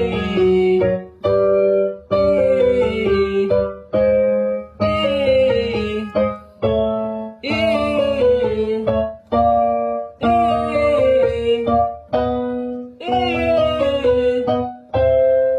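Piano chords with a singer vocalising short descending scale runs over them, repeated phrase after phrase with brief breaks between: a vocal range exercise.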